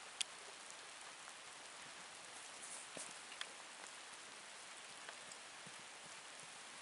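Steady, even hiss of background noise, with a few faint scattered ticks and a sharp click just after the start and another a little past halfway.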